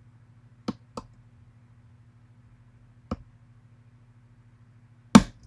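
Four sharp metallic clicks from a pin-tumbler challenge lock and its picks being worked, two close together near the start, one in the middle and the loudest near the end.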